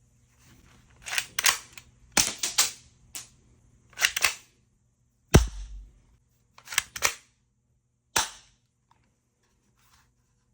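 All-metal airsoft pistol shooting soft pellets: a series of sharp snapping shots and clicks, coming in small groups about a second apart, the loudest about five seconds in with a low thud after it.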